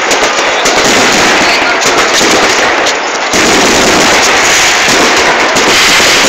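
Very loud, dense barrage of fireworks: overlapping bangs and rapid crackling with no let-up, easing only slightly for a moment about three seconds in.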